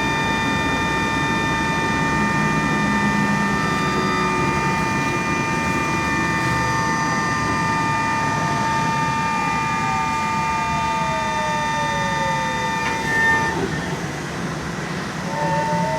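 LAZ E-183D1 trolleybus heard from inside while running: a steady high electrical whine over road rumble, with the electric motor's whine falling slowly in pitch as the trolleybus slows over several seconds. The whine cuts out briefly near the end, then rises again as it picks up speed.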